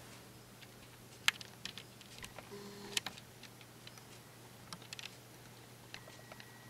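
Scattered sharp light clicks and ticks, irregular, over a faint steady low hum, with a faint high steady tone coming in near the end.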